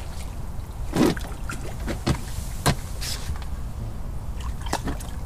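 A hooked carp being played close in to the bank, thrashing at the surface: a few short splashes over a steady rumble of wind on the microphone.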